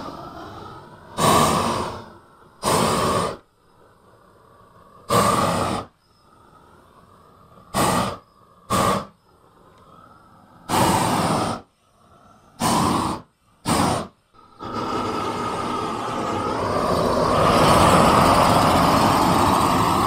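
Propane torch flame from a home-built 'Not a Flamethrower' replica fed by a propane cylinder, fired in eight short blasts of under a second each, each cut off sharply. It is then held on in one long continuous blast over the last third, which gets louder toward the end.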